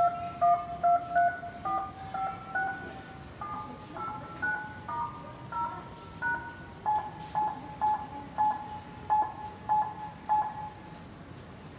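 A run of about twenty telephone keypad tones, short two-tone dialling beeps at changing pitches, from a mobile phone being keyed. The last eight or so repeat the same tone steadily about twice a second.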